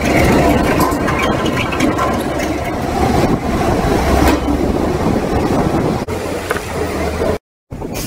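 Crawler piling rig running loudly while it works its soil-laden auger at the bore, with a few sharp clanks. The sound cuts out for a moment near the end.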